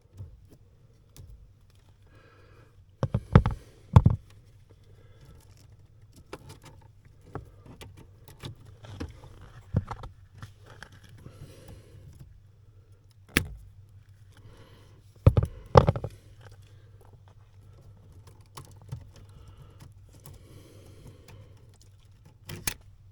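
Hands and tools working at the stop light switch under a 1993 Jeep Grand Cherokee's dashboard: scattered clicks, knocks and small rattles of plastic and metal parts. The loudest are a pair of sharp knocks about three to four seconds in, another around thirteen seconds and two more around fifteen to sixteen seconds, over a low steady hum.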